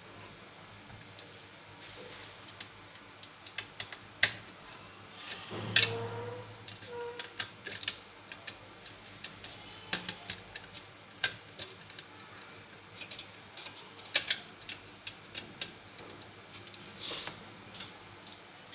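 Scattered irregular clicks, taps and knocks from an opened computer power supply's metal case and circuit board being handled and set down on a desk, the loudest knock about six seconds in.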